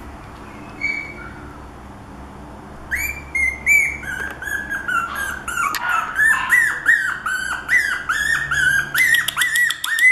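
Four-week-old puppy whining in a rapid run of short, high-pitched squeals, three or four a second, starting about three seconds in and growing louder.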